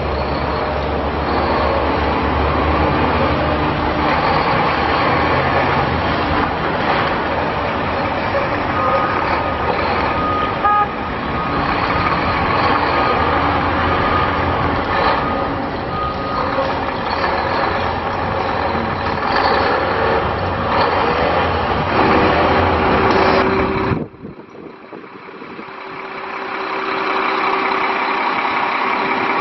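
Diesel engine of a 2008 Mack GU813 flatbed truck running as the truck drives across a gravel yard. About three-quarters of the way in the sound cuts off abruptly, and a quieter steady hum with a held tone builds back up while the truck's Hiab knuckle-boom crane is worked.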